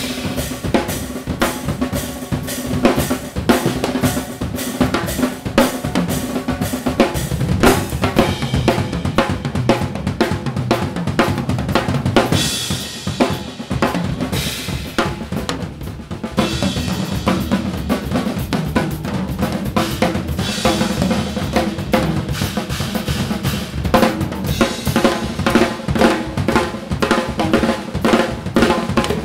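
Two drum kits played in an improvised duet: busy snare, tom and bass drum strokes with hi-hat and cymbals. The cymbals ring more strongly about halfway through.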